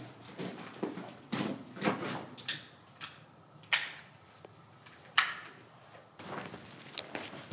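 Sparse crunching and rustling footsteps on dry debris and brittle stalks, with a few sharper cracks spaced a second or more apart.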